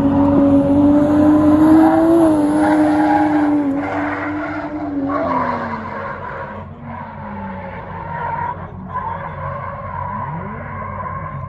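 A car drifting at high speed. Its engine is held high in the revs, climbing in pitch over the first two seconds and holding there, then dropping away after about five seconds. A long, steady tyre squeal carries on through the second half.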